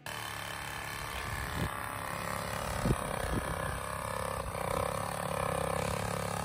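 A small cordless power tool running steadily with a constant whine as it cuts low in a dirt trench, with a few sharp knocks in the first half.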